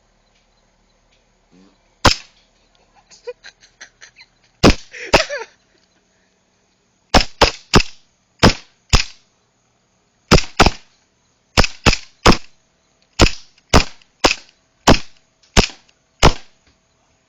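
A WE gas blowback airsoft pistol firing about twenty sharp shots, singly and in quick pairs and triples with short pauses between. Before the first pairs comes a run of faint small clicks.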